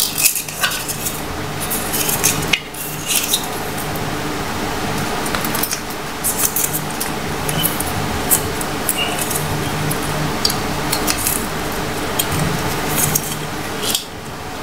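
A paper banknote being folded and creased by hand, crinkling and crackling in short irregular bursts over a steady low hum.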